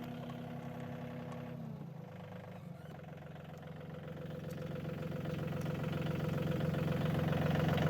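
Riding lawn mower engine running steadily. Its pitch shifts about two seconds in, and it grows louder towards the end.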